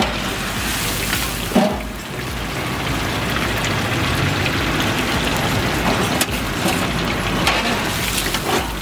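Pieces of marinated chicken 65 deep-frying in hot oil, a steady sizzle, with a short clatter about a second and a half in.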